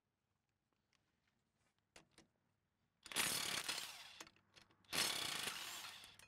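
Cordless impact wrench hammering as it loosens bolts on a corn head's stalk roll plates, in two bursts of about a second each, after a couple of light clicks.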